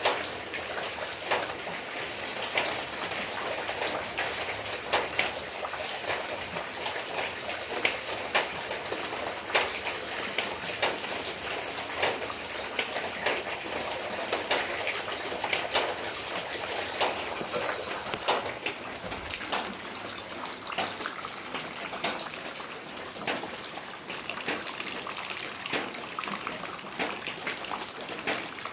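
Steady rain falling, with many close, sharp drops and drips hitting hard surfaces all through it.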